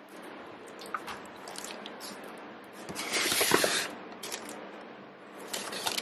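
Paper and thin plastic sheeting rustling and crinkling as a washing-machine user manual and leaflets are picked up and handled, loudest in a burst of about a second near the middle.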